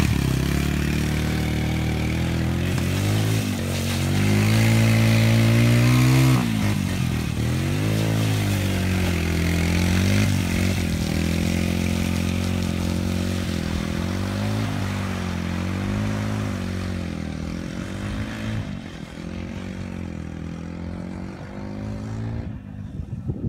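Small ATV engine revving up and down repeatedly as the quad spins and slides through mud, loudest a few seconds in. The engine sound then fades steadily as the ATV rides away into the distance.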